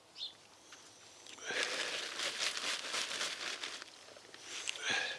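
Hands rummaging through loose potting soil in a potato-growing bucket to check for any potatoes left: a dense, crackly rustling that starts about a second and a half in.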